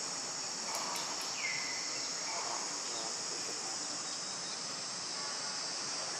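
Steady high-pitched chorus of insects droning without a break, with one short falling chirp about a second and a half in.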